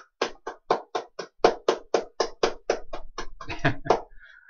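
An excited child making a rapid run of sharp percussive hits, about five a second, coming a little faster near the end.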